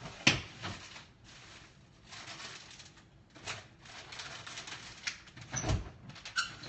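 Kitchen handling sounds: a sharp knock about a quarter second in, then a few scattered clicks and knocks and a duller thump near the end, as things are moved about on the counter and in the cupboards.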